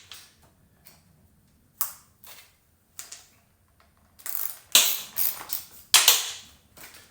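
Sharp metallic clicks and clacks of hand work on a Stihl MS 201 chainsaw's bar and chain, slackening off an over-tight chain. A few separate clicks come first, then a quicker cluster of clacks in the second half.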